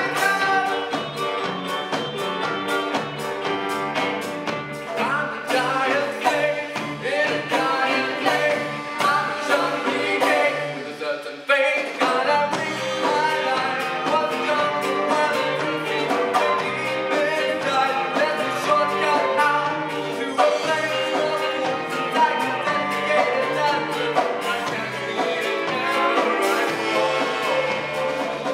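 Folk-music ensemble playing live, dense and rhythmic with many sharp note attacks; the music drops out for a moment about eleven and a half seconds in, then carries on.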